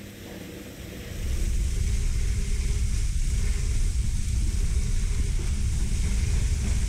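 Water spraying up under a pickup truck and splashing onto the wet floor: a steady hiss over a low rumble. It is quieter for about the first second, then comes in full.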